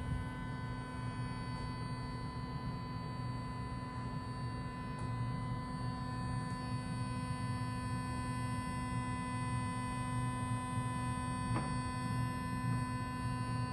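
Steady electric hum and whir of the model brewery smokestack's smoke unit, its small fan motor running as it blows out smoke, with one faint click near the end.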